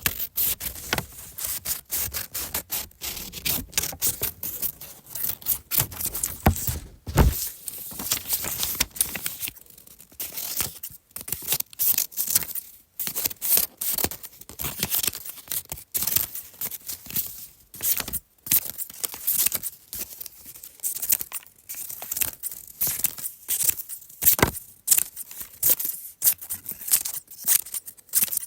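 Scissors cutting paper: an uneven run of crisp snips and paper rasps, several a second, with brief pauses now and then.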